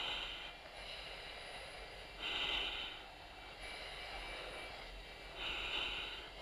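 A fighter pilot's breathing through an oxygen mask, picked up on the intercom: three hissing breaths about three seconds apart, over the steady background noise of a Harrier cockpit with the cabin air turned off.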